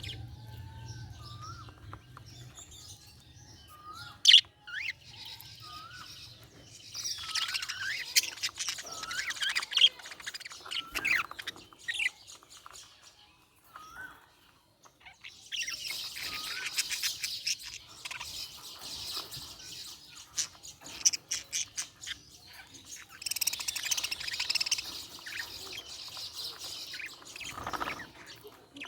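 Budgerigars chirping and warbling in bouts of quick, high, twittering notes with short whistled upward chirps between, and a sharp click about four seconds in.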